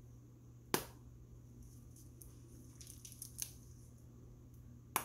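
Quiet crinkling of a plastic piping bag squeezed by hand as frosting is piped onto cupcakes, with a sharp click about a second in and another near the end, over a steady low hum.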